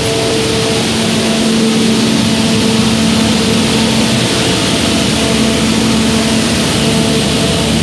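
Steady running noise inside a passenger train carriage: a loud even rumble with a steady humming drone.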